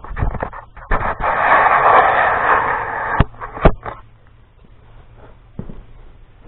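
Steel-on-steel work noise: a loud rushing noise for about two seconds, then two sharp metal clanks a half-second apart, with a few lighter knocks after.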